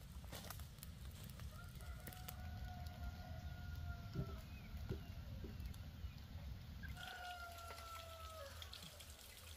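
A rooster crowing twice, each crow a long held call that falls off at the end, the first about two seconds in and the second about seven seconds in, over a low steady background rumble.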